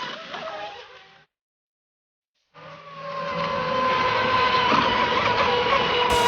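Sound fades out into a second of dead silence. Then a ProBoat SonicWake RC boat's brushless motor comes in running on the water: a steady high whine over a hiss of spray.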